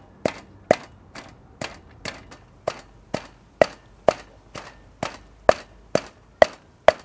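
Wooden pestle pounding in a mortar: a steady run of sharp knocks, about two a second, that stops near the end.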